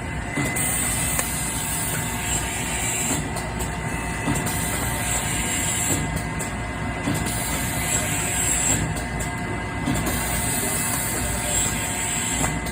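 Automatic bottle-labelling machine running: a steady mechanical whir with a thin high whine, the hiss dropping briefly about every three seconds.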